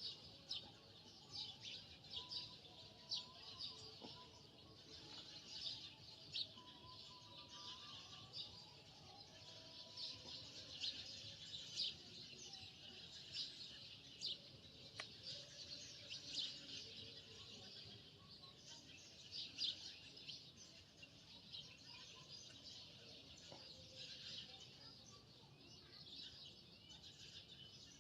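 Small birds chirping continuously, many quick overlapping chirps at a faint level.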